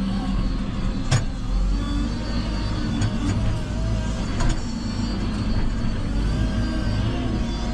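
JCB 3CX backhoe loader's diesel engine running steadily under load, with a sharp metallic knock about a second in and a few fainter knocks later.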